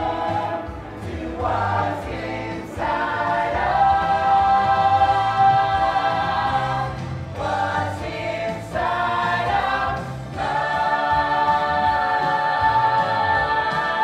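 A group of musical-theatre singers singing together in chorus, holding long, sustained notes.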